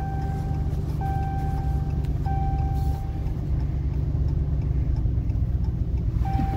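Inside a vehicle's cab: steady low rumble of the engine and tyres on a wet road. Over it, an electronic chime sounds a held tone of about a second three times in a row in the first half, then once more at the very end.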